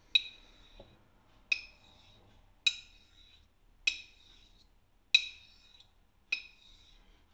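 Straight razor on a Shapton Kuromaku 12k waterstone: six sharp metallic clicks, about one every second and a bit, each with a short ringing of the blade, as the razor meets the stone at each honing stroke.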